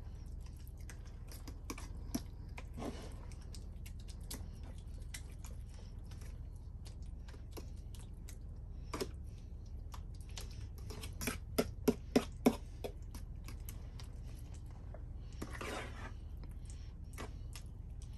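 A fork clicking and scraping against a metal cake pan while stirring cherry pie filling and cream cheese, with a quick run of four louder taps about two-thirds of the way through and a short scrape shortly after.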